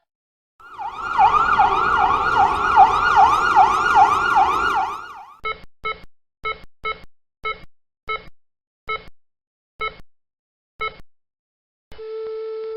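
Emergency siren with a fast wail, its pitch swinging up and down about three times a second; it starts about a second in and cuts off after about four seconds. Then comes a string of about a dozen short electronic beeps, and near the end a steady unbroken tone begins.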